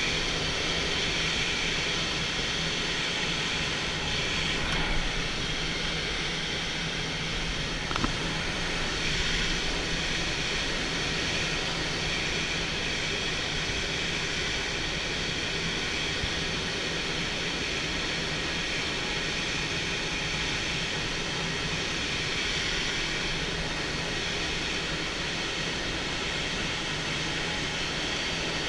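Steady in-flight noise of a light aircraft or glider: a constant low engine drone under a broad rush of air, with one brief click about eight seconds in.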